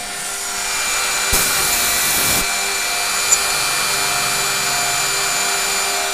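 CNC router spindle running at speed with a steady whine, its bit milling a groove into plywood. A louder, hissier stretch comes about a second in, and there is one sharp click about three seconds in.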